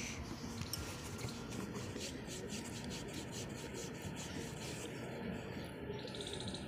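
Hands rubbing and massaging a baby's legs: faint, continuous rubbing of skin and cloth, made up of many small scuffs.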